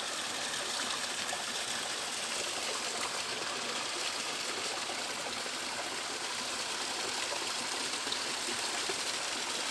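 Small forest creek flowing and trickling over stones, a steady rushing of water.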